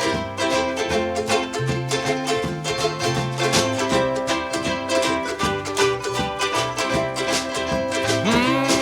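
A ukulele band playing an upbeat instrumental intro: strummed ukuleles over a bass line that moves from note to note.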